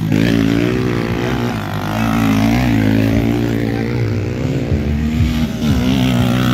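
Motocross dirt bike engines running hard as the bikes race past, their pitch rising and falling with the throttle.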